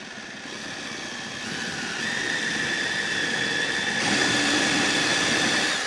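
Cordless drill boring a 5/8-inch Forstner bit into a small turned wooden pipe bowl. The motor gives a steady whine over the chatter of the bit cutting wood, growing louder over the first few seconds as the bit bites deeper.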